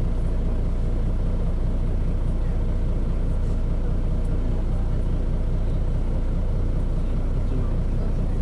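Mitsubishi Fuso KC-MP617K city bus engine running steadily under way, heard from inside the bus as a heavy low drone. It sounds far from the model's normal engine note, which the uploader takes for a sign of some fault or trouble.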